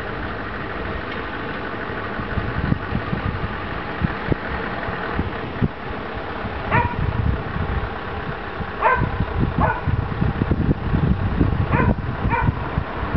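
Scania 164L 580's V8 diesel engine running as the truck and trailer roll slowly forward. A dog barks five times in the second half.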